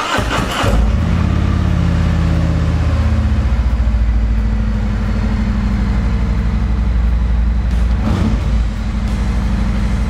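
Harley-Davidson Road Glide Special's Milwaukee-Eight 114 V-twin cranking on the starter and catching within the first second, then idling with a steady pulsing beat. It has started in first gear with the clutch pulled, the sign that the cleaned and loosened clutch safety switch is now making contact.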